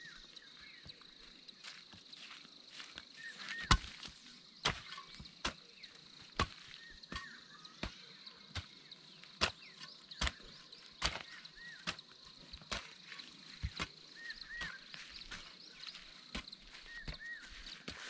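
Hand hoe chopping into soil, a sharp blow a little more than once a second, with a steady insect drone behind it.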